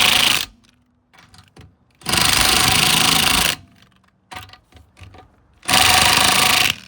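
Impact gun hammering the wheel's lug nuts tight, in three separate runs of about a second or so each with short pauses between, one nut after another.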